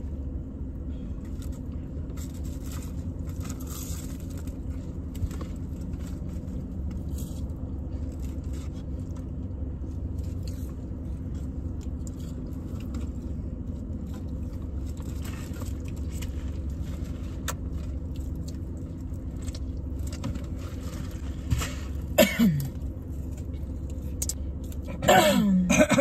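Steady low hum of a car's idling engine and air conditioning inside the cabin, with small scattered rustling and handling sounds. A brief human vocal sound comes near the end, and a louder one just before it finishes.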